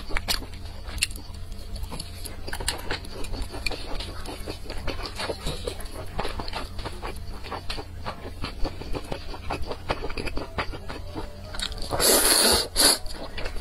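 Close-up eating sounds: wet chewing and mouth smacks, many small clicks. Near the end, a loud slurp of noodles lasting under a second, then a shorter one.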